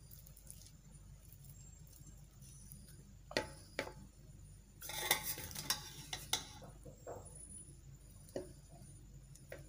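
Metal fork scraping and clinking against a plate while turning over cooked rice. There are a few separate taps, and the loudest is a longer scraping stretch about halfway through.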